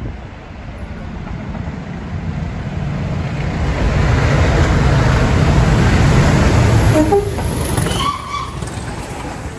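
Diesel locomotive running through the station, its engine rumble growing louder as it approaches and passes close, then dropping away after about seven seconds as the coaches follow. A few short high-pitched tones come as the coaches pass.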